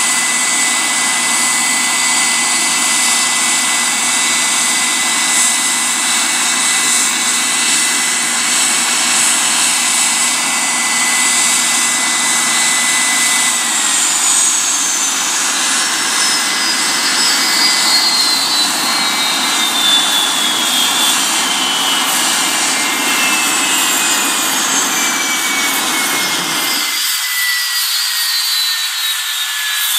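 Business jet's rear-mounted turbofan engines running at idle with a steady high whine. About halfway through, one engine is shut down and its whine falls steadily in pitch. A second falling whine follows about ten seconds later, and the low rumble drops away suddenly near the end.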